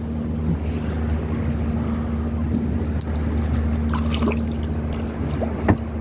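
A boat's engine running steadily with a low, even hum, and a single sharp knock near the end.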